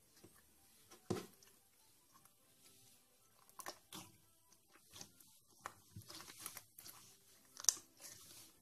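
Clear orange slime being stretched and squeezed by hand, giving faint, irregular wet clicks and crackles. The sharpest come about a second in and near the end.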